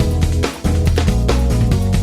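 Background music with a heavy bass line and a steady beat, dipping briefly about half a second in.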